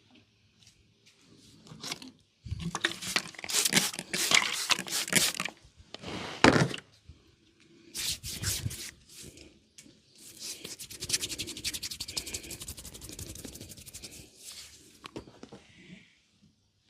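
Hands rubbing and scraping over oiled skin during a massage, close to the microphone. First come several short rough bursts, then about five seconds of fast crackling.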